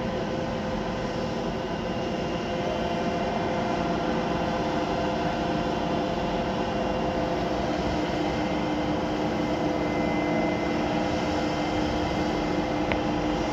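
Road-construction machinery with its engines running steadily: a continuous mechanical drone with a few constant tones in it and no revving.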